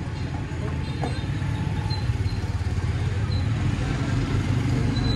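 A low, rough, steady motor-like rumble that grows slightly louder toward the end, with a few faint short high peeps over it.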